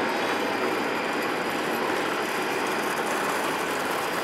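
Jet airliner engine noise: a steady, even rush with a faint high whine.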